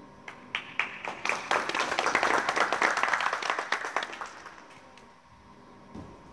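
Small group of people clapping: a few scattered claps that quickly build into a short round of applause lasting a few seconds, then die away.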